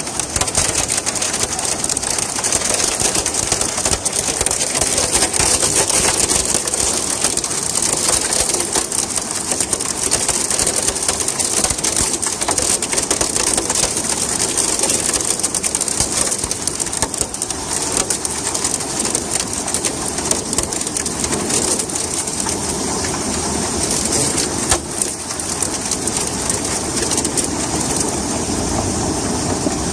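Hailstorm with heavy rain: hailstones and rain pelting down in a steady, dense clatter of countless small impacts.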